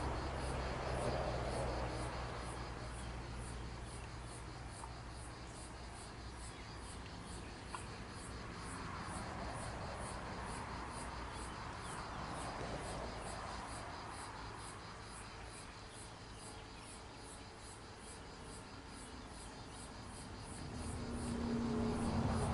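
Insects chirping in a steady, even pulse of high notes. In the last second or so a low hum rises in level as a Fiat ALn 776 diesel railcar approaches the crossing.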